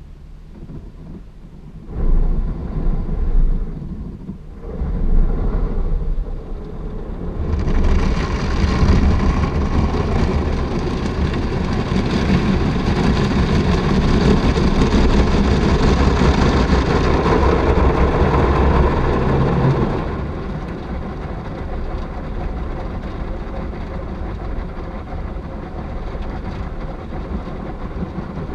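Automatic car wash heard from inside the car: after low rumbling thuds, water jets start hitting the windshield and roof about seven seconds in, a loud steady spray rinsing off the coloured foam. The spray eases to a lighter steady rinse about two-thirds of the way through.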